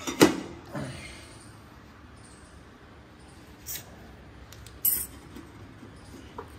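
Metal clinks from handling and fitting a motorcycle's chrome exhaust pipe: a sharp ringing clink just after the start, a smaller one just before a second in, and two light ticks around four and five seconds in.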